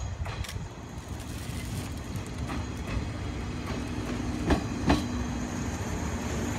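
JR East 583 series electric train pulling slowly into the station: a steady rumble that grows as it draws nearer, with wheel clacks over rail joints, two sharp ones about four and a half and five seconds in. A steady low hum joins about two seconds in.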